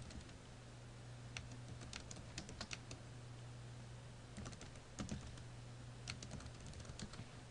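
Computer keyboard being typed on in two short runs of keystrokes, about a second in and again from about four and a half seconds, over a faint steady low hum.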